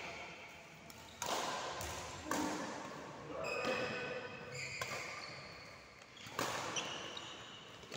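Badminton rally: shuttlecock struck back and forth by rackets, a sharp hit about every second or so, with short squeaks of shoes on the court floor between hits.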